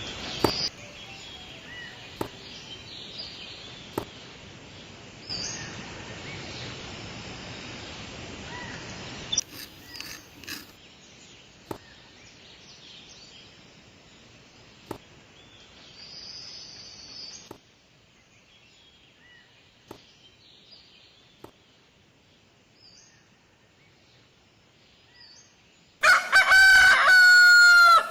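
A rooster crows once, loudly, near the end, a single call of about two seconds. Before it there is a quiet noisy background with a few sharp clicks and faint high chirps.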